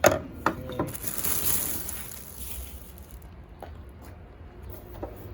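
Handling noise from unboxing: a sharp knock at the start and another about half a second later, then a second or so of rustling, with a few light clicks after.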